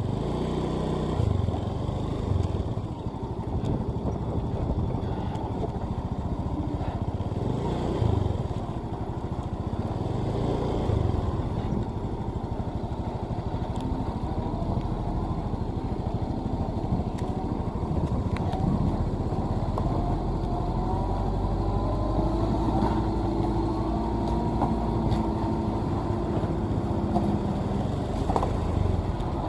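Motor vehicle engine running on the road, steady throughout, with its pitch rising and falling a few times in the second half.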